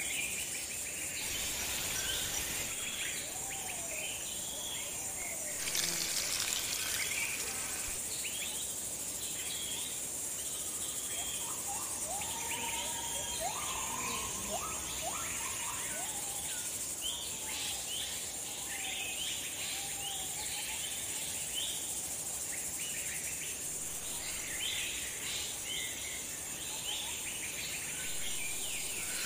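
Forest ambience: a steady high insect drone under many short bird chirps and calls, with a run of rising whistled notes in the middle. A brief rush of noise about six seconds in.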